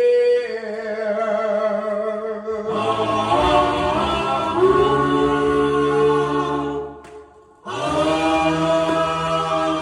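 A vocal group singing slow, held harmony chords, with a short break about seven seconds in before the next chord.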